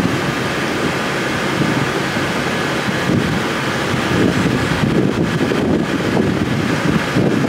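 Alsthom diesel-electric locomotive idling, a steady engine and cooling-fan hum with faint steady tones, with wind buffeting the microphone.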